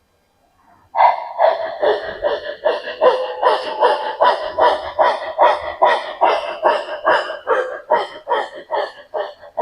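A woman panting rapidly through the open mouth with the tongue stuck out, in a pranayama breathing exercise: quick forceful breaths at about three a second, starting about a second in.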